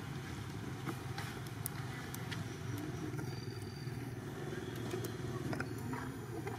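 Steady low rumble of distant motor traffic, with a few faint clicks.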